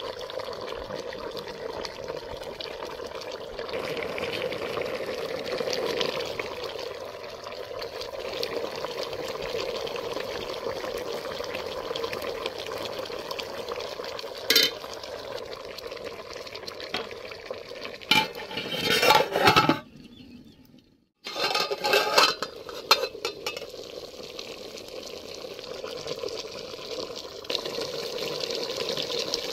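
Meat frying in a metal cooking pot, a steady sizzle, with a spoon clattering and scraping against the pot around halfway through and again about two-thirds through. The sound cuts out for about a second between the clatters.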